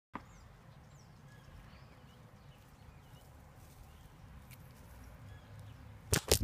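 Faint outdoor garden ambience with a low rumble and a few faint bird chirps, then a few sharp knocks close together near the end.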